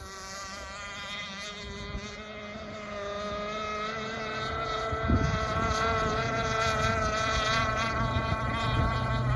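Engine of a Bonzi Sports Skater RC racing boat running at speed, a high steady whine that wavers a little in pitch and grows louder partway through. A brief gust of wind hits the microphone about five seconds in.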